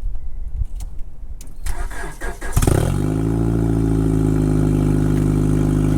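2000 Honda Accord's F23 inline-four cold-starting after sitting for a week and a half. A few clicks, then the starter cranks briefly. The engine catches about two and a half seconds in with a short rev flare and settles into a steady idle.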